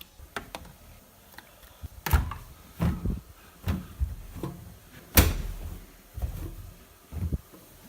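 A series of irregular knocks and thumps, about six, the loudest about five seconds in.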